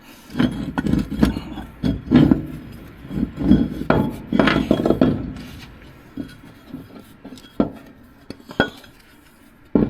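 Hand tools clinking and knocking against steel truck parts while engine-mount hardware is worked on. There is a busy run of clatter over the first five seconds, then only scattered single clicks.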